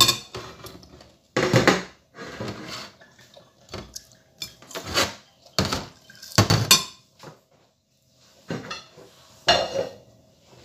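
Plates and cutlery clattering and clinking against each other and the counter, in a string of separate knocks about once a second.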